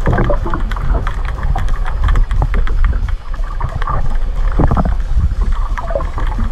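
Underwater sound picked up by a submerged camera: a loud, muffled rush of moving water with many small crackles and pops.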